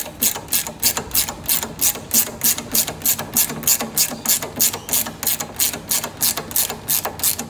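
Socket ratchet clicking steadily, about four to five clicks a second, as it is worked back and forth to run up the bolt holding a go-kart water pump to its chassis bracket.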